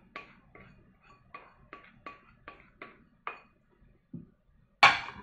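Plastic spoon tapping on the rim of a stainless steel mixing bowl about three times a second, each tap with a short metallic ring, as margarine is knocked off into the batter. Two louder clattering knocks come near the end.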